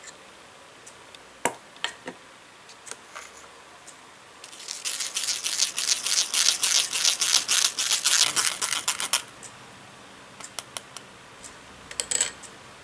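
Tiny wire whisk working crepe batter in a small metal mesh strainer, pushing it through: rapid scratchy strokes, several a second, for about four and a half seconds. A few light clinks of glass and metal come before and after.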